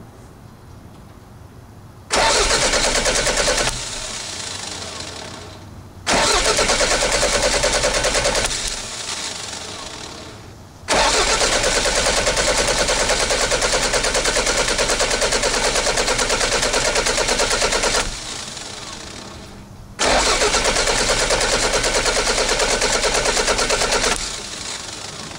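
A Toyota MR2 turbo's four-cylinder engine cranked on its starter four times, the third time the longest, while its coil-on-plug ignition is tested for spark and firing order.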